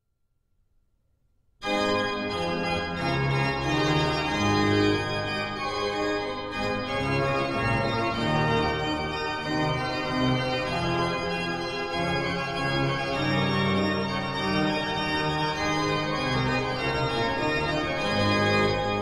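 Organ music starts suddenly about a second and a half in: full sustained chords over a moving bass line.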